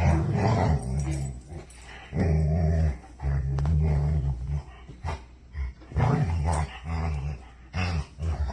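A Labrador growling and grumbling in about six low bouts, some over a second long, with short breaks between them. It is playful vocal 'cussing' rather than aggression.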